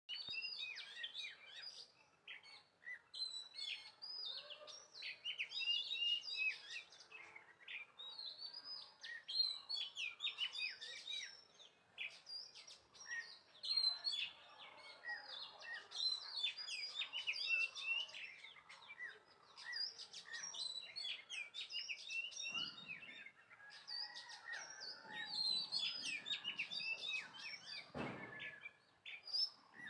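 Small birds chirping and twittering continuously, many short rapid calls overlapping, with a couple of dull knocks in the last few seconds.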